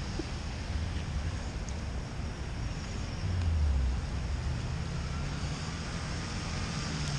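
Wind buffeting the microphone over the low rumble and tyre hiss of an SUV rolling slowly by on the wet road; the rumble swells about three seconds in.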